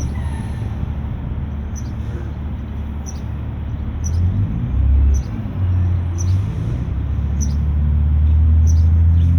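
Steady low rumble, swelling louder in the second half, with short high chirps repeating about once a second.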